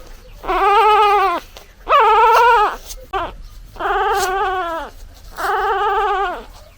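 Newborn puppy crying for its mother: a run of loud, high-pitched, wavering cries just under a second each, every one dropping in pitch at its end, with a short yelp about three seconds in.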